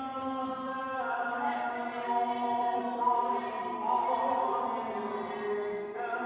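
Background music: held notes with a sung or chanted quality, changing pitch every second or so.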